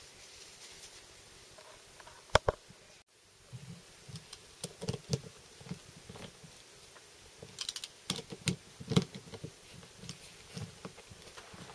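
Light, irregular clicks and taps of a hand driver and metal parts on a workbench as the bolts joining the two halves of a four-piston motorcycle brake caliper are turned in. Two sharp, loud clicks come about two and a half seconds in, then scattered clicks and soft knocks.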